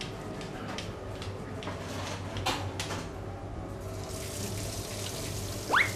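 Battered soft-shell crab deep-frying in a basket of hot oil: a steady bubbling sizzle with scattered pops and crackles, the hiss growing brighter about four seconds in. A brief rising tone comes right at the end.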